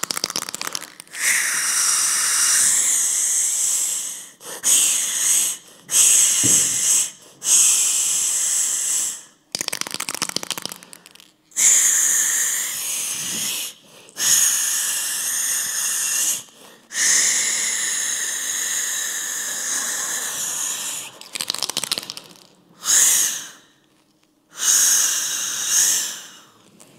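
Aerosol spray-paint can spraying in about a dozen short bursts of one to four seconds each, a harsh hiss with brief gaps between, as graffiti is written.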